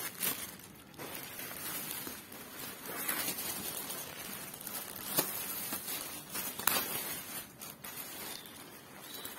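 Clear plastic poly bag crinkling and rustling as a backpack is pulled out of it by hand, with a few sharper crackles.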